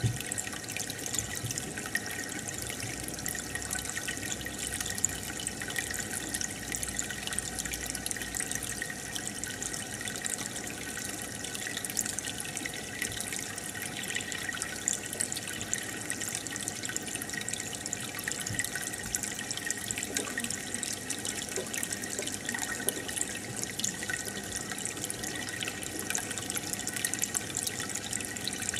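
Aquarium water bubbling steadily from an air line's bubble stream, with a constant fine crackle.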